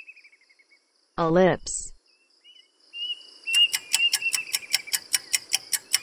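Nature ambience of insects with birds chirping. From about three and a half seconds in, a fast run of sharp clicks comes in, about six a second.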